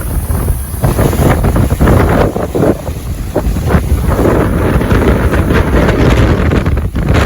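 Strong gusty wind buffeting the microphone in uneven surges, heavy at the low end.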